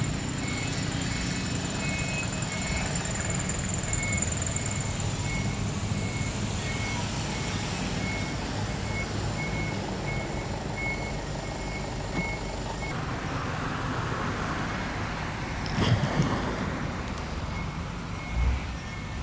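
Street traffic with a vehicle's reversing alarm beeping at a steady, quick pace over the low sound of running engines, with a brief knock near the end.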